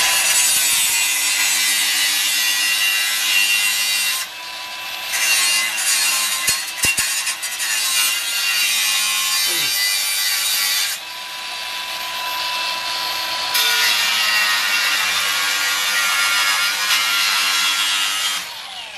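Cordless angle grinder cutting steel at a car's rear hub, trimming the brake area to clear a larger caliper: a steady high whine under a harsh grinding hiss. The cut eases twice, about four seconds and about eleven seconds in, and the grinder spins down near the end.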